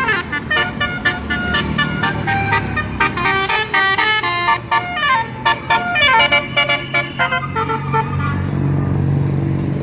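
A bus's multi-tone 'telolet' (basuri) horn plays a quick tune of short notes, stopping about seven and a half seconds in. The bus's engine then runs with a low steady drone.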